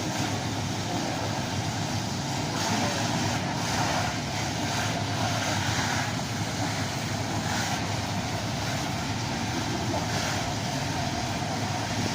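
Fire engines idling: a steady, low engine rumble.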